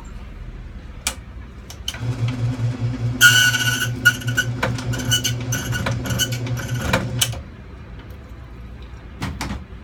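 Key-duplicating machine cutting a Master M1 key blank. The motor starts about two seconds in, the cutter wheel rasps and whines through the blank for about four seconds, then the motor stops. There are a few sharp clicks before and after.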